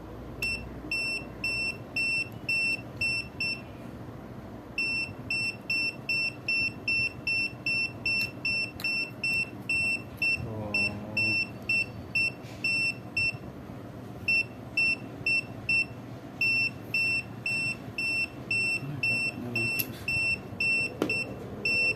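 Aneng 681 digital multimeter's buzzer beeping in short, high-pitched pulses, about three a second, with two brief pauses.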